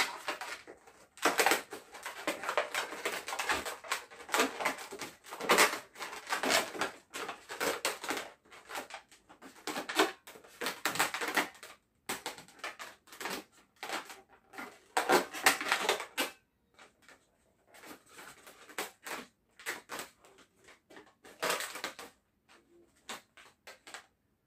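Inflated latex modelling balloons rubbing and squeaking against each other in the hands as a small balloon loop is worked into the frame of a twisted balloon rifle. The sound comes in irregular bursts, busiest in the first half and sparser later on.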